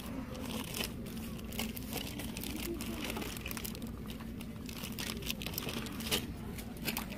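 Close crinkling and rustling with many scattered small clicks, over a steady low hum.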